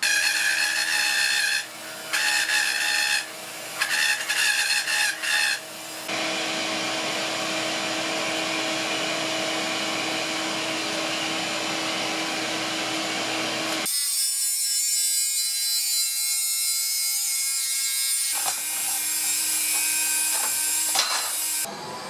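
Handheld rotary tool routing a channel into fire brick, whining in three short bursts over the first six seconds. After that comes steady, even machine noise with a low hum, which changes character twice.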